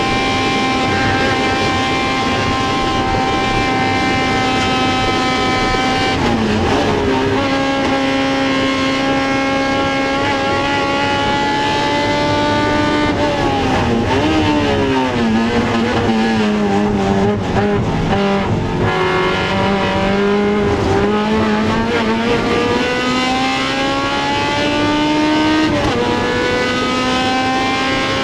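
Honda CRX race car's four-cylinder engine running hard at steady revs, dipping briefly about six seconds in. Around the middle the revs fall in steps as it downshifts, then climb steadily again, with a quick drop from an upshift near the end.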